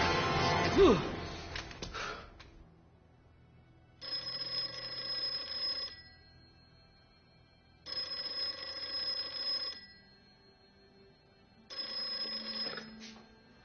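A loud sound dies away over the first two seconds, then a telephone rings three times. Each ring lasts about two seconds, with pauses of about two seconds between them.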